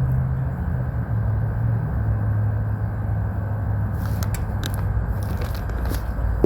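Steady low machine hum, its pitch dropping slightly about a second in, with small clicks and scrapes of handling from about four seconds in.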